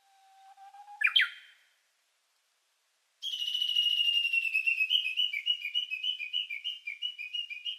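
High, bird-like whistled chirping. A faint low whistle note swoops sharply upward about a second in. After a short gap comes a long run of warbling whistled notes, wavering between two pitches several times a second.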